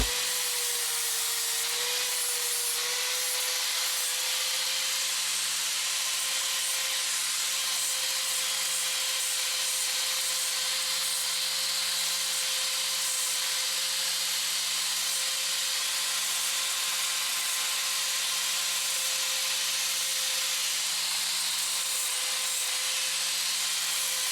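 A small power tool running continuously at a steady speed: an even whine over a hiss, without a break.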